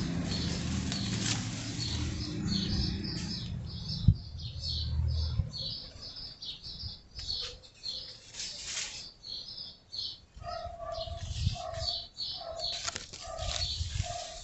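Birds chirping in quick, high notes. A low rumble runs under the first few seconds. From about two-thirds of the way in, a lower call repeats about twice a second.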